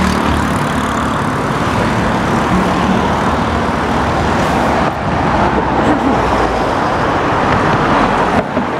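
Steady road traffic noise from cars passing on the road over the bridge.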